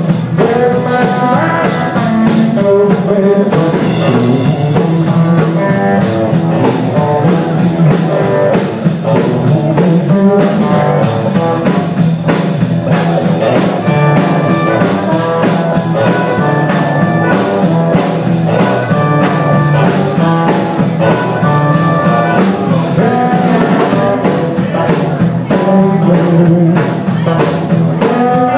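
Live band playing: electric guitar, electric bass and a drum kit, loud and continuous.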